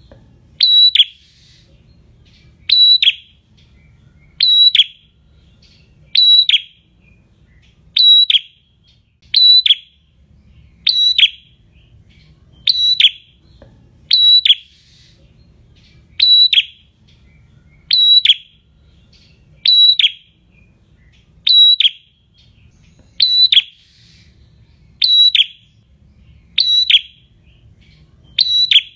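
Prenjak songbird calling a short, sharp, high-pitched note over and over, about once every second and a half to two seconds, seventeen times.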